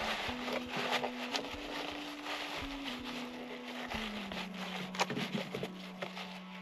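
Plastic wrapping rustling and crackling, with light knocks and clicks of tubs and bottles being shifted about inside a small fridge. Soft background music with slow, held notes plays underneath.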